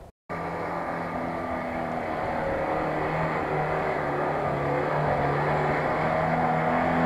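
A brief dropout to silence, then an off-road 4x4's engine working hard through sand, getting gradually louder as the vehicle comes closer, its pitch rising and dipping a little.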